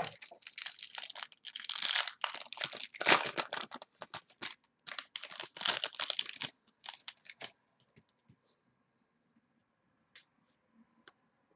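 Plastic wrapping on a box of football trading cards being torn open and crinkled, a run of ripping and crackling for about seven seconds that then stops, leaving a few light ticks.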